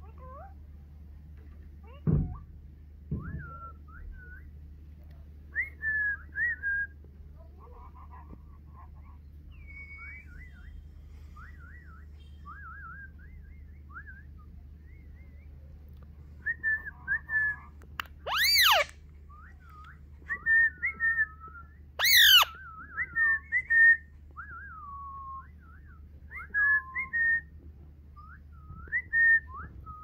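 Indian ringneck parakeet making short whistled chirps and pitch glides, broken by two loud, sharp screeches a few seconds apart after the middle. A low thump sounds near the start.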